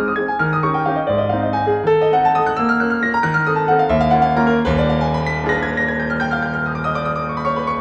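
Background piano music: a melody of notes changing about every half second over held bass notes.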